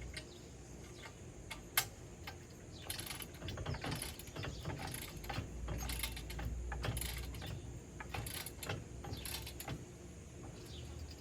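Metal clicking and rattling of a wrench working self-locking nuts tight on a kayak rack's bolts, with a sharp single click about two seconds in.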